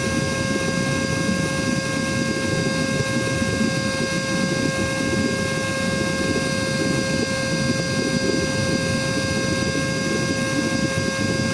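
Cordless vacuum cleaner's motor running steadily: a high, even whine over a constant rush of air. The battery is running down and the motor is at reduced power.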